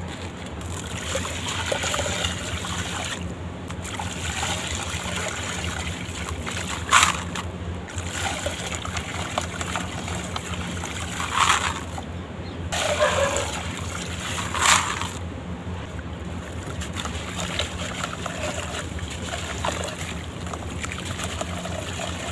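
Charcoal, sand and cement blocks crumbling in water: a steady wet crumbling and trickling, over a faint low hum, with four sharper, louder crunches or splashes spread through the middle.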